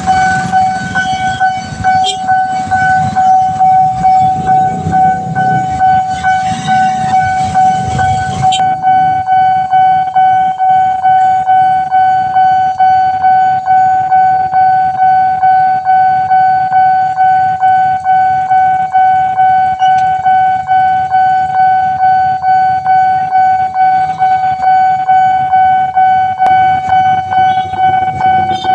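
Railway level-crossing warning siren sounding a steady high tone in a fast, even pulse. A passing train rumbles loudly under it for the first eight seconds or so, then stops suddenly, leaving the siren on its own.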